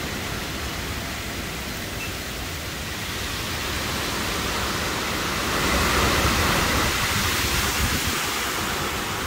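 Storm wind rushing through the trees with heavy rain, swelling louder in a gust a little past halfway.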